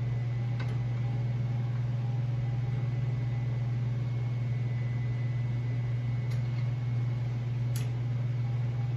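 A steady low machine hum fills the workshop. A few light clicks of metal parts being handled come about half a second in and twice near the end.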